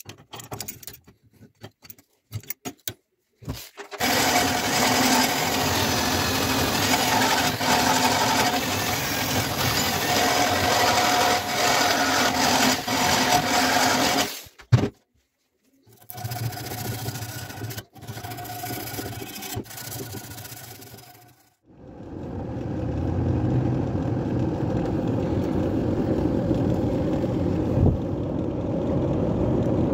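Sandpaper rubbing by hand on the steel of a rusty cleaver, then a handheld power sander running against the blade for about ten seconds and cutting off suddenly. After a break, a steady low rumble from the fire in a makeshift steel-box forge.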